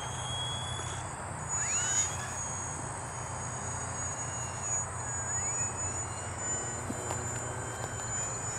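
Faint high-pitched whine of the radio-controlled foam plane's small electric motor and propeller flying overhead, its pitch gliding up and down several times as it passes and changes distance.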